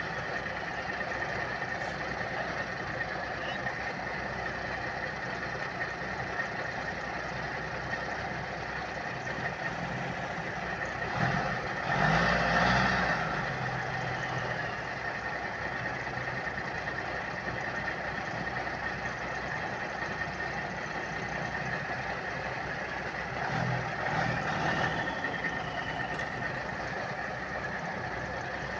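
Heavy truck engines running with a steady drone, swelling louder about eleven seconds in and again near twenty-four seconds.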